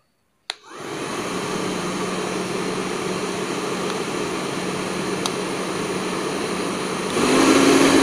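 Canel & Co hand-held hair dryer switched on with a click about half a second in, then running steadily, a rush of air over a low motor hum. Near the end it steps up louder and higher in pitch.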